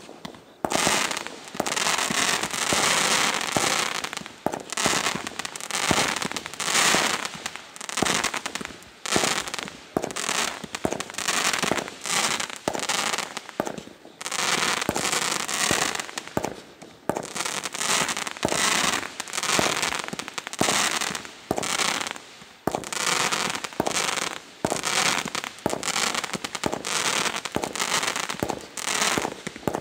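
Small aerial fireworks firing in quick succession: a rapid run of launch pops and bursts, several a second, easing off briefly about halfway through and again about two-thirds of the way through.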